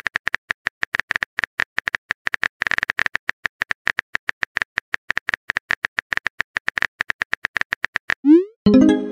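Rapid keyboard-typing click sound effect from a chat-story animation, about ten uneven taps a second, stopping about eight seconds in. Near the end comes a short rising swoop and a brief pitched pop as a message is sent.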